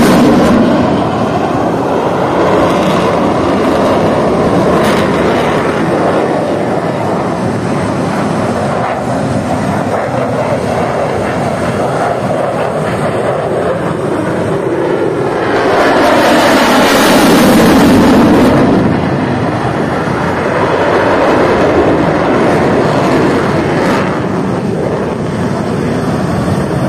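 F-16 fighter jet flying a display overhead, its engine roar loud throughout. The roar swells to its loudest about two-thirds of the way through, then drops in pitch as the jet passes.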